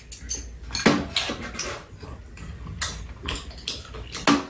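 Eating sounds: chopsticks clicking and tapping irregularly against ceramic bowls and plates, with sipping and chewing mouth noises between the clicks.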